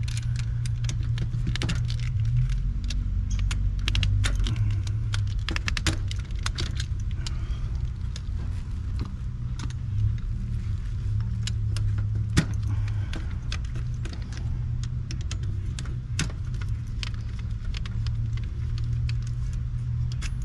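Light metallic clicks and jingling of wire terminals being handled at an AC unit's contactor, scattered irregularly, over a steady low rumble.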